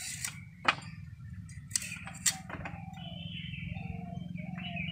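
Giant taro (mankochu) being sliced on an upright bonti blade, with a few sharp clinks as cut pieces drop onto a steel plate.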